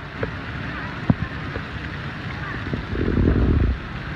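Rain shower falling steadily with a continuous hiss, broken by a few soft low knocks and a louder low rumble lasting under a second about three seconds in.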